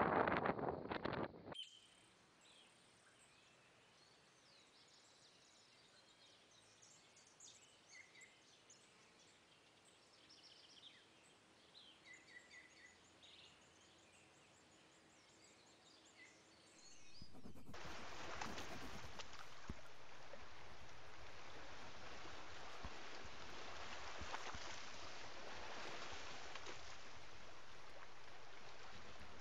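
Wind rushing on the microphone for the first second or so, then a quiet stretch with small birds chirping now and then. About 17 seconds in, a steady loud rush of wind and surf comes in and holds.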